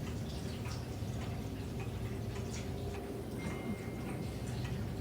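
A clock ticking faintly over a steady low hum.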